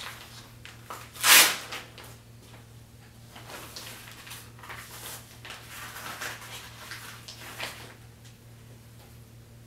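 Blood pressure cuff being wrapped around an upper arm: a loud, short tearing burst of its Velcro about a second in, then softer rustling and scraping of the cuff fabric as it is smoothed and fastened.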